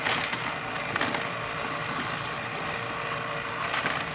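Ice cream maker running: a steady mechanical hum with a churning rasp and a few light knocks.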